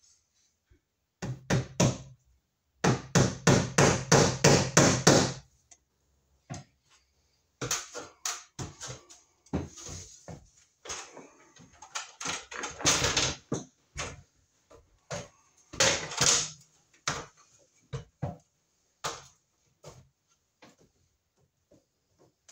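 A hammer striking wood in a quick run of about ten blows, roughly four a second, then scattered knocks and rustling.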